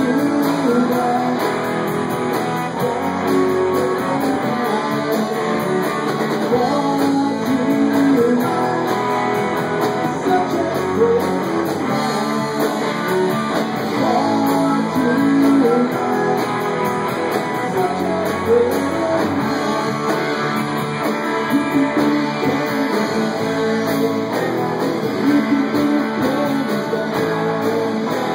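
Live band playing an instrumental passage led by guitar, with plucked and strummed guitar notes over a steady backing.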